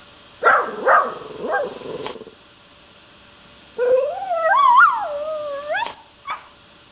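Dog vocalizing: a few short yips in the first two seconds, then a long wavering whine-howl about four seconds in that rises in pitch at the end.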